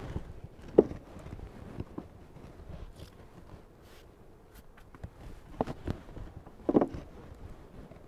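Wooden beehive frames knocking against hive boxes as they are handled, about five short knocks with the loudest about a second in, between soft flicks of a bee brush sweeping bees off the comb.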